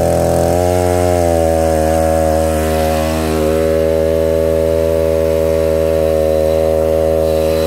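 Two-stroke chainsaw engine running steadily on its own just after a cold start, warming up. Its note steps up a little about half a second in, then holds steady.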